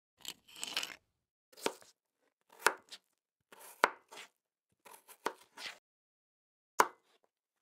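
A kitchen knife cutting through a crisp raw radish: a string of short, sharp crunches, roughly one a second and unevenly spaced.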